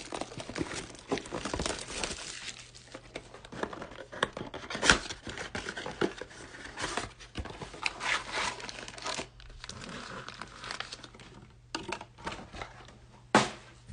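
Cardboard trading-card blaster box being torn open by hand, with plastic wrap crinkling and foil card packs rustling as they are pulled out. A sharp tap comes near the end.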